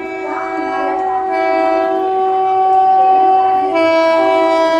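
Mumbai suburban local train's horn sounding one long, loud blast of several tones together, dropping slightly in pitch about four seconds in.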